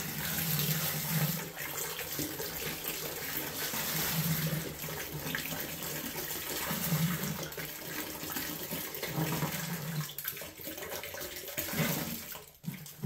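Apple juice poured from two cartons splashing into a stainless steel Grainfather conical fermenter, a steady splashing pour that falls off near the end. The juice is splashed in on purpose to get oxygen into it for the yeast.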